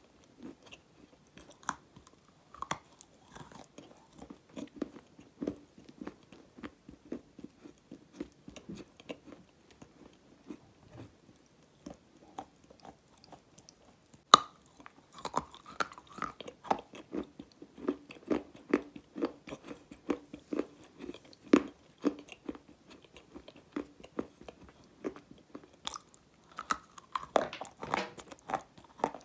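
Close-miked chewing and crunching of a hard food, with runs of quick crackling chews. There is a sharp, loud bite about halfway through and more bites near the end.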